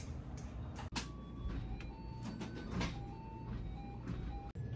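Background ambience: a steady low hum with scattered clicks and knocks and a few short, faint tones. The background changes abruptly about a second in and again near the end.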